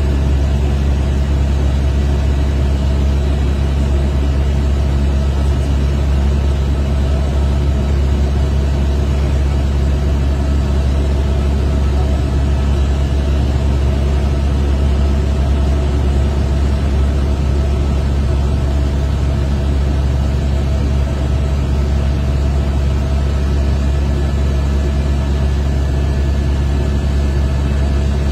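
Helicopter cabin noise: a steady, loud low drone of engine and rotor, unchanging throughout, as in level flight.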